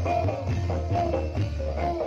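Live jaran kepang accompaniment: a Javanese percussion ensemble playing a steady rhythm, with pitched strikes about twice a second over a steady low drone.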